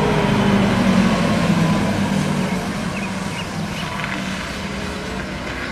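A large bus's engine running as the bus drives slowly past: a steady hum that grows slightly quieter as it goes.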